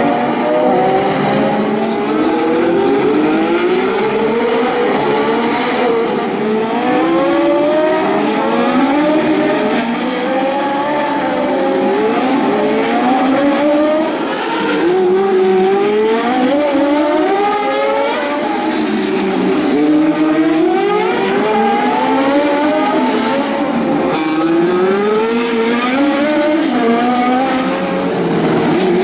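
Several historic Grand Prix racing cars' engines at full race revs, their pitch repeatedly climbing and dropping back as they change up through the gears. The notes overlap throughout as a group of cars passes in turn.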